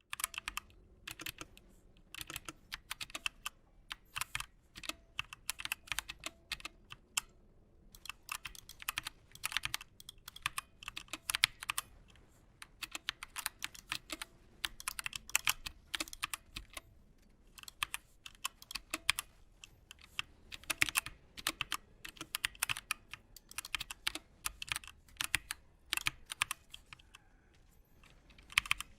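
Redragon Draconic K530 mini mechanical keyboard being typed on: rapid runs of key clicks and clacks, with brief pauses twice.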